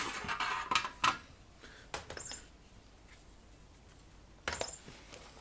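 Light handling noises on a workbench: a thin aluminum chassis plate being shifted on a cutting mat. A short scrape at the start, a couple of sharp knocks about one and two seconds in, and another brief scrape near the end.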